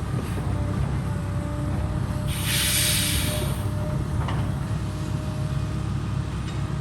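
Heavy construction machine's engine running steadily with a low rumble, and a loud hiss lasting about a second, starting a little over two seconds in.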